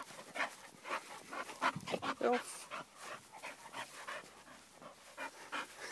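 A dog panting in short breaths at irregular intervals, with a brief pitched whine about two seconds in.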